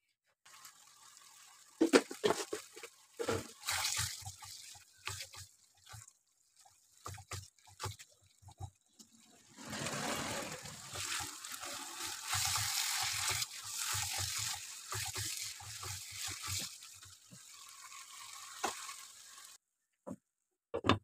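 Thick chicken bharta gravy simmering in a pan on the stove, bubbling with many small pops and splutters, and a steadier sizzle through the middle stretch. It cuts off suddenly near the end.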